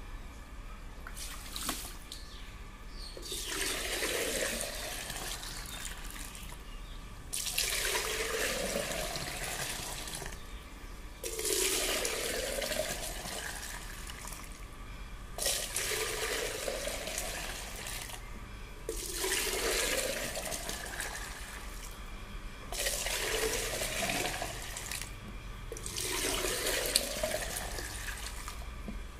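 Juice poured back and forth between two plastic jugs to mix it: about seven pours of a few seconds each, each splashing into the jug with a note that rises as the jug fills.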